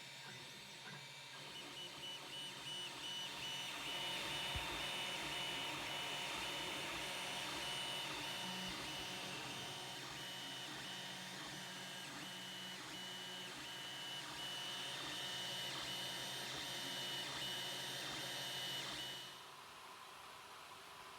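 Creality Ender 3 Pro 3D printer running with a BTT SKR Mini E3 board, its TMC2209-driven stepper motors virtually silent in StealthChop, so mostly a steady whir of fans and motion with a faint high whine. The running builds a few seconds in and stops near the end, leaving a fainter hum.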